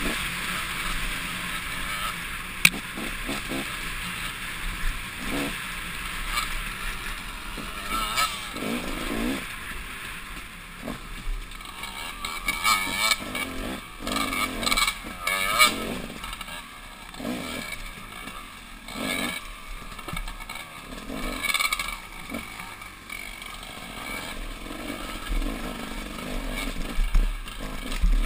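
Dirt bike engine heard from a camera mounted on the bike, its note rising and falling irregularly as the rider works the throttle over a rough trail. Now and then a sharp knock or rattle from the bumps, a loud one about two and a half seconds in.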